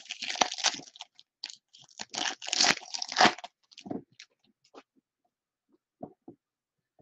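Foil wrapper of a Bowman Mega Box baseball card pack being torn and crinkled, a dense crackling for about the first three and a half seconds. After that come a few scattered light ticks as the cards are handled.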